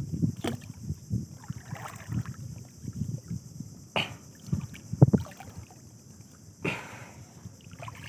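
Irregular knocks, thumps and water movement around a small boat, with a sharp knock about five seconds in, over a steady high insect drone.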